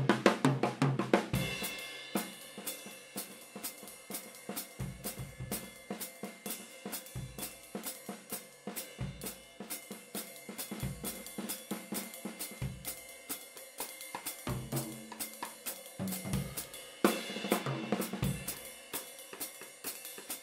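Acoustic drum kit with Sabian HHX and Spizz cymbals played with sticks in a free improvisation: snare, cymbals and bass drum. It opens with a loud, dense flurry, drops to quieter, sparser playing with scattered bass drum hits, and builds back to loud, dense playing near the end.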